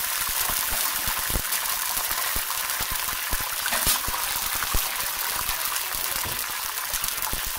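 Canned tomatoes sizzling and spattering in hot olive oil in a frying pan: a steady hiss with many small pops and crackles.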